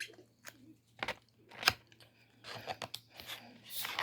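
Eating fried chicken: several short, crisp crunching and crackling sounds close to the microphone, the loudest about halfway through and at the very end.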